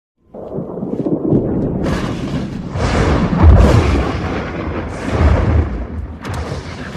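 Film destruction sound effect: a continuous crashing rumble that starts suddenly, with two heavy deep booms about three and a half and five seconds in and a sharp crack near the end.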